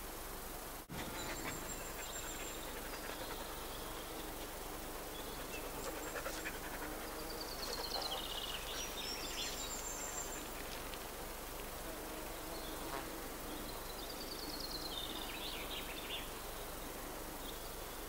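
A songbird sings a descending run of high notes about six seconds in and again about fourteen seconds in, with brief thin high whistles between, over a steady background hiss. The sound drops out for an instant about a second in.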